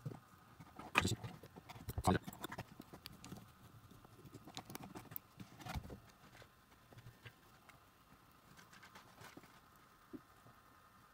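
Small sharp clicks and taps of metal tweezers and a soldering iron tip against a remote control's tiny circuit board and its wires during hand soldering. The loudest come about one and two seconds in, a cluster follows around five to six seconds, then only a few faint ticks.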